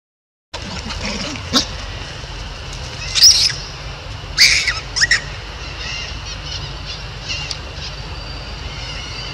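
A few short, high-pitched animal calls that slide in pitch, loudest about three to five seconds in, over a steady outdoor background.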